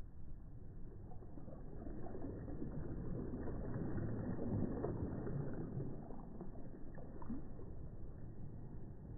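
Small waves breaking softly close by: a wash of water that swells to its loudest about halfway through and then ebbs away.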